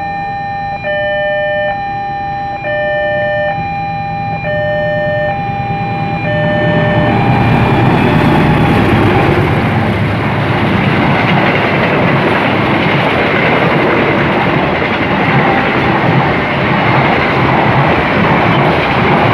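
An electronic two-tone chime alternating about once a second, then, from about seven seconds in, the loud, steady noise of a train passing close by.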